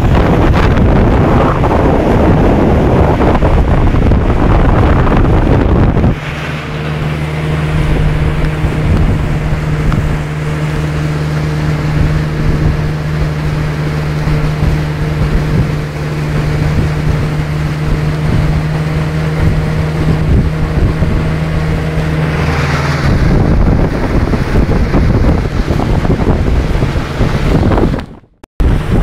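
Vikhr two-stroke outboard motor driving a motorboat at steady speed, its even engine hum plain through the middle stretch. Heavy wind noise on the microphone covers it for the first six seconds or so and again from about 23 seconds in, and the sound cuts out briefly near the end.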